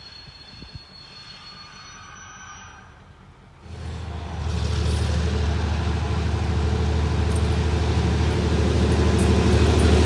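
A train, heard faintly at first with a thin high whine, then about a third of the way in its running sound comes up suddenly and loud, a steady low engine-like drone that keeps growing louder as the train comes close.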